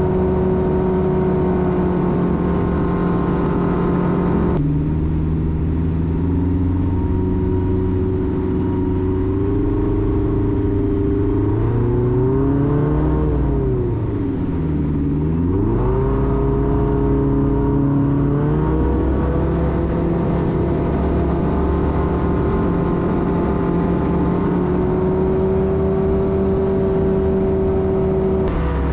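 Rotax 912-series engine and propeller of a light aircraft droning steadily in flight. The sound changes abruptly about four and a half seconds in, and between about twelve and sixteen seconds in the engine's pitch rises, falls sharply and comes back up as the engine speed changes.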